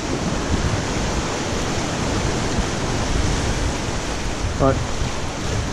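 Turbulent inlet current churning around the concrete jetty pilings: a steady rush of moving water that holds at one level throughout.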